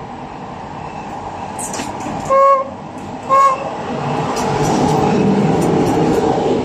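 Serbian Railways class 461 electric locomotive sounding two short horn toots, about two and three seconds in, then passing close by as it pulls out of the station. The noise of its motors and wheels rises to a steady level as the locomotive and its coaches go by.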